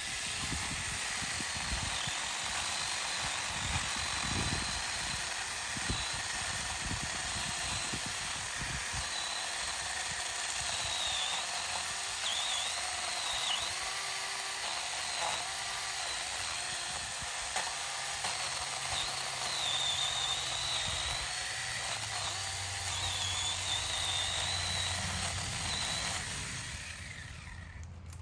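6-inch battery-powered mini chainsaw running and cutting through a branch about four inches thick. Its high whine wavers as the chain bites into the wood, and the saw winds down near the end.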